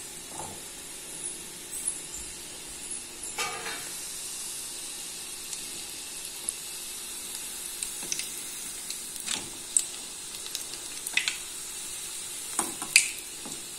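Batter-coated idli pieces deep-frying in hot oil in an aluminium kadai: a steady sizzle with scattered sharp clicks and pops as a metal slotted spoon turns the pieces.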